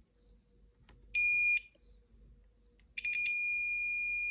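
Digital multimeter's continuity buzzer beeping as the probes bridge a logic-board inductor: a short beep about a second in, then a longer one of about a second and a half, each a steady high tone. The beep shows continuity across the coil, as expected since a coil is just a wire.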